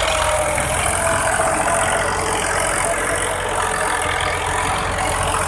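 Massey Ferguson 240 tractor's three-cylinder diesel engine running steadily as the tractor drags its rear blade through loose soil.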